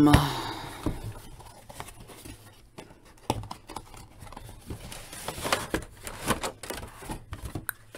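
Cardboard toy box being opened by hand and a plastic blister tray slid out of it: irregular rustles, scrapes and light taps of cardboard and plastic.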